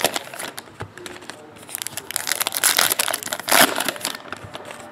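Trading card pack wrappers crinkling and rustling as packs are opened and handled by hand, in irregular bursts that are loudest about three to four seconds in.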